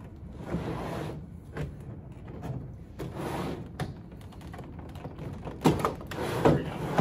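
Plastic UPS case scraping and shifting on a tabletop while a battery's spade connector is wiggled off its terminal, with two sharp knocks near the end.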